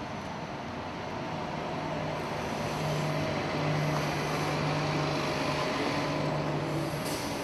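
A city transit bus's engine running close by, a steady low hum over street noise that grows louder about two seconds in, with a short hiss near the end.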